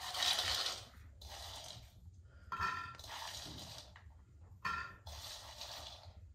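Four bursts of scraping and rustling, each about a second long, as food is handled in a frying pan on a stove.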